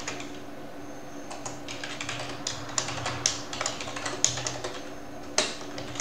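Typing on a computer keyboard: irregular keystrokes, sparse in the first second, then quicker runs of keys, with one sharper keystroke near the end.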